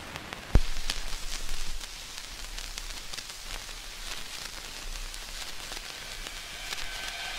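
Crackling, rain-like noise texture with scattered clicks, opening a chillstep track. A hiss swells up near the end.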